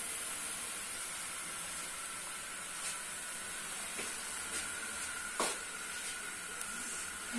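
Curry masala of chicken, potatoes and green chickpeas with tomatoes sizzling steadily in the cooking pot. A few light knocks come through, the clearest about five and a half seconds in.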